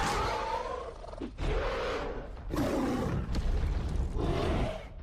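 Monster-fight sound effects: three creature roars with wavering pitch over a steady low rumble.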